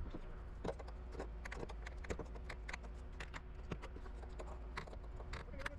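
Scattered light clicks and taps, several a second and irregular, over a steady low rumble.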